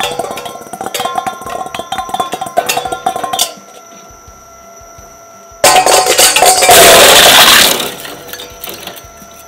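Stainless steel bowl clanging and rattling against the turning cutter discs of a twin-shaft shredder, which cannot bite into it, over the shredder's steady motor whine. The clatter stops about three and a half seconds in, leaving the whine alone, and about two seconds later a loud crashing clatter lasts a couple of seconds before dying away.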